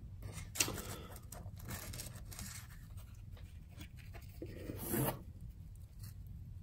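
A slice of wood-fired margherita pizza being pulled from the pie and lifted out of its cardboard box: light crackling and rustling of crust and cardboard, with a louder rustle about five seconds in.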